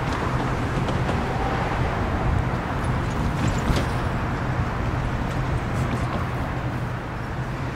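Loram rail grinder working along the track: a steady low diesel drone under an even grinding hiss.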